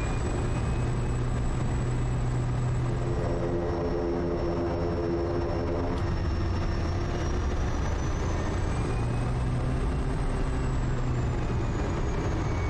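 Quest Kodiak's turboprop engine and propeller running at taxi power: a steady drone with a thin high turbine whine that drifts slowly up and down in pitch.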